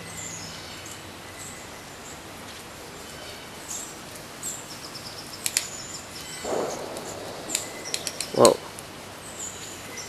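Small woodland birds chirping with short high calls, with a scattering of sharp taps from a downy woodpecker pecking at pine bark. A short dull thump about eight and a half seconds in is the loudest sound.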